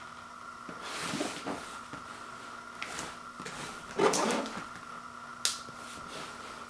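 A cardboard box being handled and turned over by hand: the cardboard scuffs and rubs, with a few sharp taps and a louder knock about four seconds in as the box is laid on a wood floor. A faint steady hum sits underneath.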